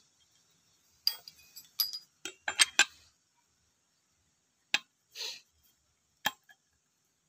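Scattered sharp metallic clicks and clinks of metal engine parts and tools being handled: a quick cluster of them in the first few seconds, then a single click, a short scrape and one more click.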